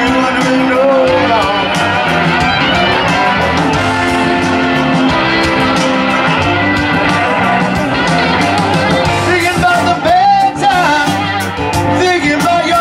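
Live rock band playing: electric guitars over electric bass and a drum kit, with a steady beat.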